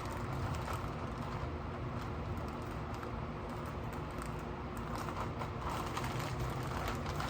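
Light, scattered clicks and taps of small metal parts, screws, being handled during engine work, over a steady low hum.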